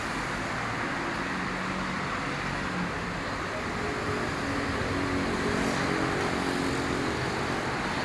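Steady city road traffic: a continuous wash of passing cars, with engine hum rising out of it after about a second.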